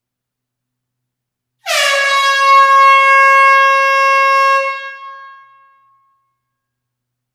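A single air horn blast in a closed hall: one steady pitch with a rich stack of overtones. It starts abruptly about one and a half seconds in, holds for about three seconds, then dies away over about a second as the hall echoes it.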